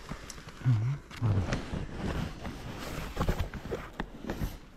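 A man's two short low grunts early on, then steady rustling and crackling of dry leaves, needles and twigs on the forest floor with small snaps, as the ground is trodden and disturbed while picking.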